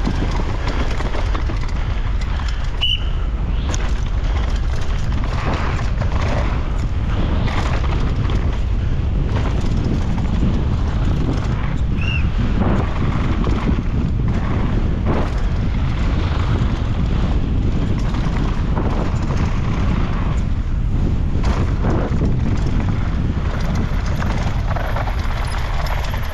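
Downhill mountain bike descending a rough race course at speed: a steady rush of noise with the bike's chain, suspension and tyres clattering over rough ground, and two short high squeaks about three and twelve seconds in.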